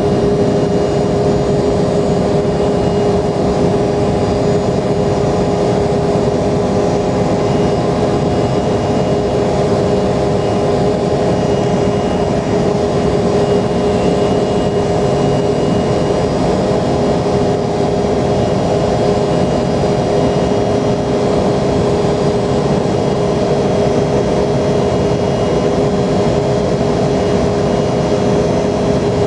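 Embraer 170's twin GE CF34-8E turbofan engines running steadily at a constant pitch, a loud even drone with a held hum-tone through it.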